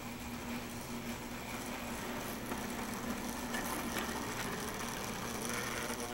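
O-scale model diesel locomotive running on three-rail track toward the camera: a steady motor hum with wheel and track rumble, growing slightly louder as it comes closer.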